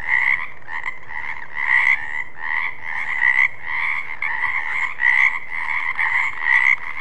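A chorus of frogs croaking steadily, with many calls overlapping and louder croaks standing out about once a second.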